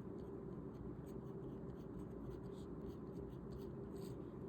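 Pen scratching on paper, writing Chinese characters stroke by stroke: a run of short, faint scratchy strokes over a steady low hum.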